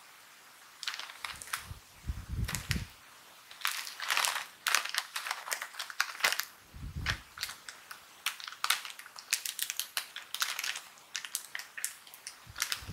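Plastic wrapper of a Nissin Eggnog Cookies snack packet crinkling irregularly as it is handled and turned over, with a few dull bumps, ending with fingers gripping the top edge to tear it open.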